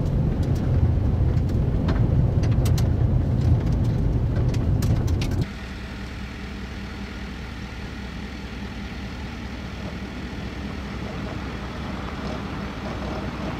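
Heavy low road rumble of a vehicle driving on a gravel road, with sharp ticks of stones, ending abruptly about five seconds in. Then a pickup truck carrying a slide-in camper approaches on the gravel, its engine a steady drone growing slightly louder.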